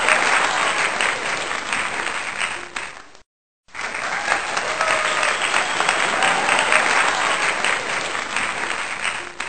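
Crowd applauding, dense clapping with some cheering. It fades and cuts off about three seconds in, then the same applause starts again half a second later and fades out near the end.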